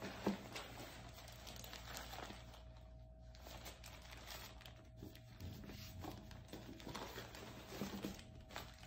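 Plastic packaging bags crinkling and rustling as a gloved hand rummages through bagged items in a cardboard box, in irregular bursts with a sharp crackle right at the start. A faint steady hum sits underneath.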